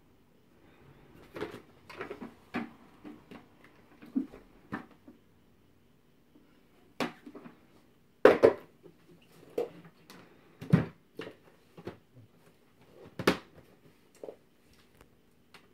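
Hard plastic parts of a Numatic Hetty HET160 compact vacuum cleaner knocking and clicking as they are fitted together: the filter set into the tub and the motor head seated on top. The sound is a string of separate sharp knocks, the loudest a little past the middle and again near the end.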